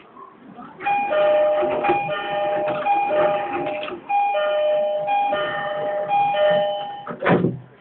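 Electronic train departure melody (hassha melody) on a JR station platform: a short bright chiming tune played through twice, ending about seven seconds in, signalling that the train is about to leave. A brief loud thump follows near the end.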